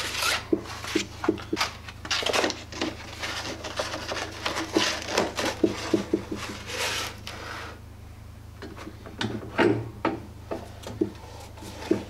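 Irregular clicks, knocks and rubbing as the abrasive belt of a small belt sander is handled by hand and worked around its wheels, over a steady low hum.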